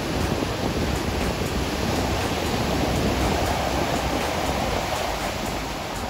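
Atlantic Ocean surf: a steady wash of breaking waves, swelling a little in the middle.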